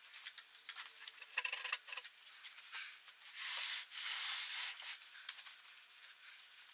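Hands handling an assembled particleboard Ikea Expedit shelf unit on carpet: rustling and rubbing scuffs, then a louder steady scrape lasting about a second and a half in the middle.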